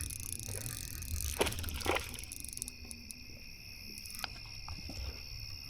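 A steady, high insect chorus of crickets over low rumbling handling or wind noise, with a few short clicks scattered through.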